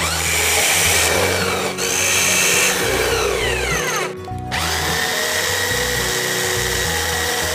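Electric drill running as it bores into a plastic container and wooden board. About four seconds in it winds down with a falling pitch, then starts up again and runs steadily.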